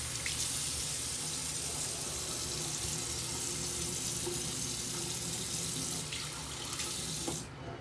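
Bathroom sink tap running steadily in a full stream, shut off near the end.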